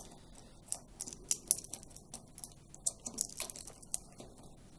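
Small irregular clicks and rattles of white plastic push-on wire connectors being handled and pushed together as the new tumble-dryer heater's wiring is joined wire for wire.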